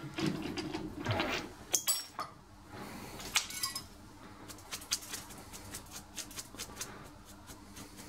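Light metallic clinks and taps as a freshly machined part and tools are handled at a stopped metal lathe, busiest in the first three seconds and sparser after, over a faint steady hum.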